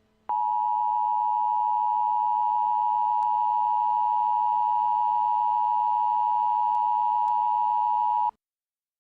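Emergency Alert System attention signal: a steady alarm tone that starts abruptly and holds for about eight seconds, then cuts off suddenly. It signals that an emergency message follows.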